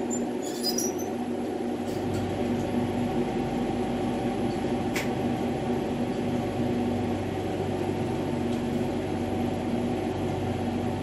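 Steady mechanical hum over a hiss from a running glassworking bench torch and the studio equipment around it, with a faint click about five seconds in.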